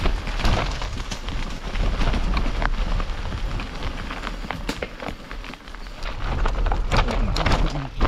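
Mountain bike moving over rough, rocky ground: a dense crackle of small clicks and rattles over a steady low rumble.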